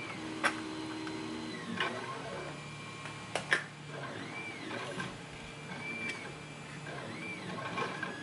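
Camera zoom motor whirring in several short whines that rise and fall in pitch, with a few sharp clicks along the way.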